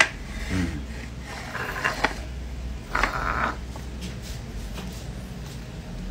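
Hands tearing into a whole roast chicken on a plate: a few short tearing and handling noises, the loudest about three seconds in, over a steady low hum.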